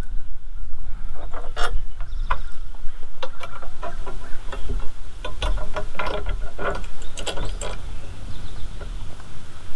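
Metal clinks, clicks and rattles of steel wheel hoe parts being handled and bolted together as the handles are fitted to their brackets, in an irregular run of sharp knocks that is busiest in the middle.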